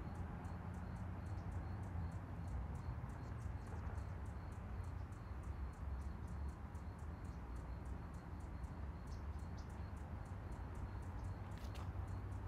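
Crickets chirping steadily at about four chirps a second over a constant low rumble, with one sharper click near the end.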